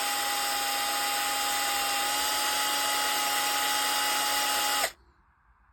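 Bosch GSR 12V cordless drill with a newly fitted motor running steadily at a high, even whine, sounding normal with its housing left unscrewed. It cuts off abruptly near the end.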